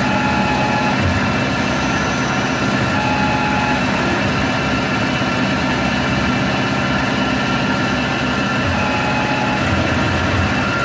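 Tormach 15L Slant Pro CNC lathe running, its spindle turning a white plastic paintball bolt while the turret tool cuts it: a steady machine hum, with a short higher whine that comes and goes three times.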